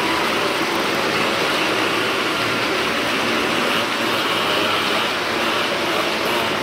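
Motorcycle and car engines running hard together as they circle the vertical wooden wall of a well-of-death stunt drum: a dense, steady, loud engine noise with no let-up.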